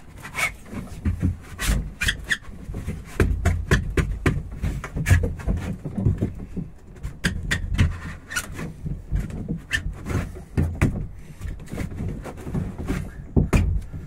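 C1 saddle being waggled and forced into a plastic kayak's cockpit against the foam pillar: irregular knocks, clicks and low thumps with rubbing of plastic on the hull.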